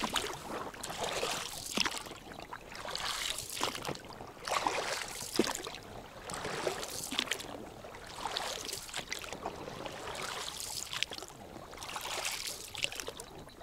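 Oars rowing an inflatable boat on calm water, dipping and splashing about once a second, with water dribbling off the blades and an occasional sharp click.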